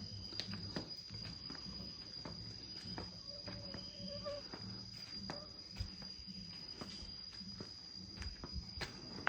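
Insects droning on one steady high-pitched tone, with scattered faint clicks and taps.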